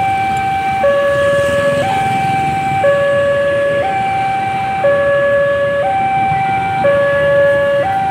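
Railway level-crossing warning alarm sounding a steady two-tone signal, high and low notes alternating about once a second: the crossing's warning that a train is coming.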